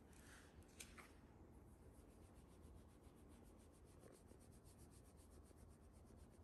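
Faint, fast rhythmic rustle of a hand rubbing a Shiba Inu's belly fur, about eight strokes a second. It is preceded by a couple of soft clicks about a second in.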